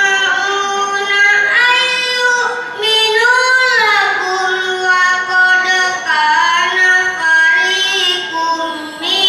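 A boy reciting the Qur'an in tartil style: long, melodic phrases held and gliding up and down in pitch, with short pauses between phrases.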